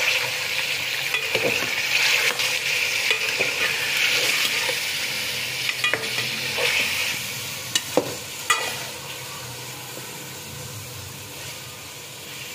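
Raw chicken pieces frying in hot ghee in a metal pot, a steady sizzle, while a metal ladle stirs them and scrapes against the pot. There are a few sharp clinks of the ladle about eight seconds in, and the sizzle grows quieter after that.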